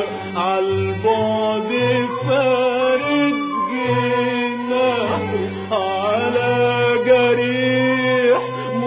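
Arabic song: a male voice singing long, ornamented, gliding phrases over a steady sustained accompaniment in Middle Eastern style.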